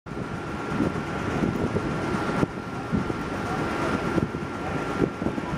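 Wind buffeting the microphone on a ship's deck, over a steady machinery hum with a thin constant whine.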